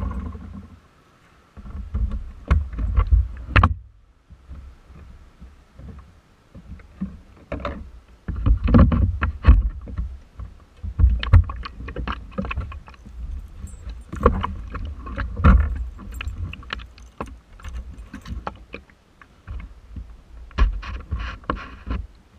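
A scooter engine dies away in the first second, then irregular knocks, rattles and low bumps follow with no engine running.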